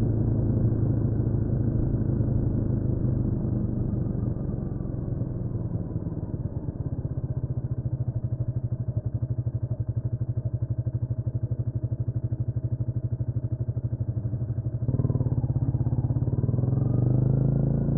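Honda CMX250 Rebel's single-cylinder engine slowing down, then idling with an even pulse for several seconds. Near the end the revs jump and climb as the bike pulls away.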